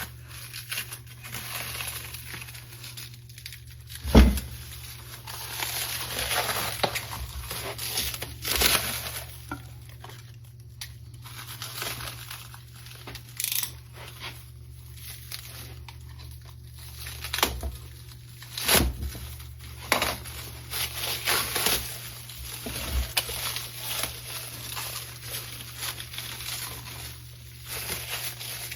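Packing wrap crinkling and tearing as a machined motorcycle cylinder head is unwrapped from its box, with a few sharper knocks, the loudest about four seconds in and another near nineteen seconds.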